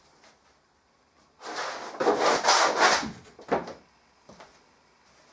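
Rough scraping and rubbing on a painted board, in a long stretch of strokes starting about a second and a half in, then one shorter scrape about a second later.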